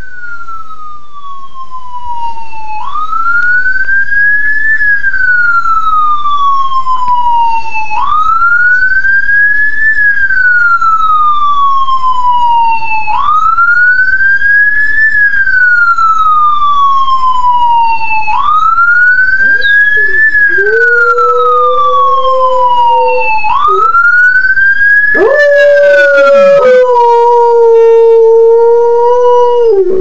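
Ambulance siren wailing, each cycle rising quickly and falling slowly, about every five seconds. About two-thirds of the way in a dog starts howling along in long, held notes, and keeps howling after the siren stops near the end.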